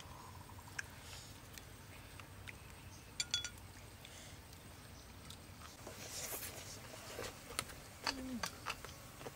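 Quiet eating sounds: a few light clicks and crackles as crispy fried pork is torn by hand and dipped in papaya salad, with a short crunchy crackle about six seconds in. Near the end, a brief falling "mm" from someone eating.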